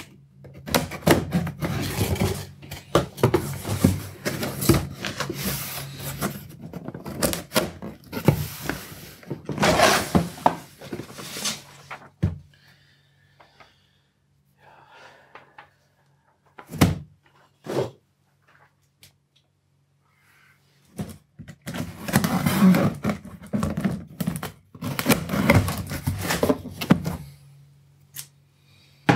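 Knocks, thunks and rustling of things being handled in a small room, in two busy spells with a quieter stretch between them broken by a couple of sharp clicks. A steady low hum runs underneath.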